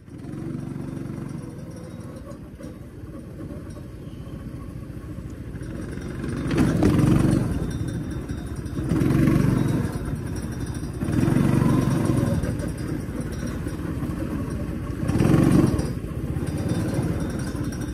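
Go-kart engine running while the kart is driven, a low steady drone that swells louder four times over the stretch.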